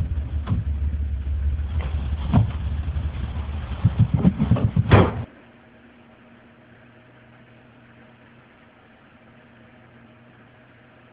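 A low rumble with scattered knocks, ending about five seconds in with a loud bang as a bedroom door swings shut. Then only a faint steady hiss with a light hum.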